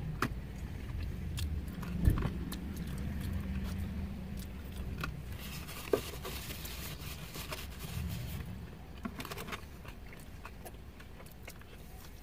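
Quiet eating sounds: scattered small clicks, rustles and chewing as fried chicken is eaten with fingers and a fork, with a brief knock about two seconds in. A low steady rumble runs underneath.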